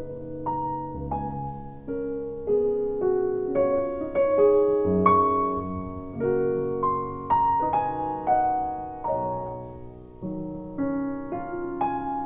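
Slow, gentle solo piano music: single notes and chords struck one after another, each ringing and fading.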